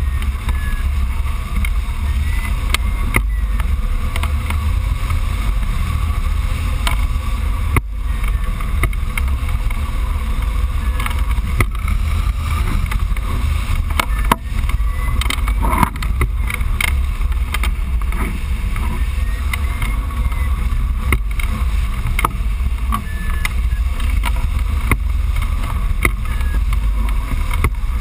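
Steady low rumble of airflow buffeting the microphone of a camera mounted on a hang glider in flight.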